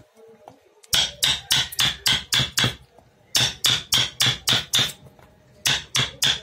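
Hammer blows, sharp knocks struck about three a second in three quick runs of about six blows, with short pauses between them.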